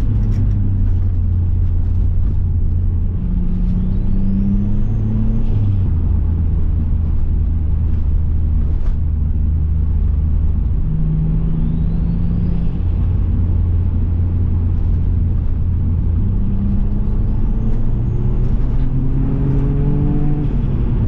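Turbocharged Subaru EZ30 3.0-litre flat-six running under way, heard from inside the car: a steady low drone whose pitch steps up and down with throttle. A high turbo whistle rises and holds three times as the engine comes on boost.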